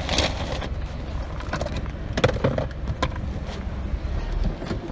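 Low rumble of an idling car, with bumps and rustling from the phone being handled against the microphone.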